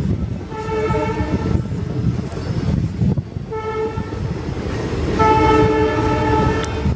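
Train horn sounding three times: a blast of about a second, a short toot, then a long blast near the end. Underneath is the steady rumble and wind noise of a moving passenger coach.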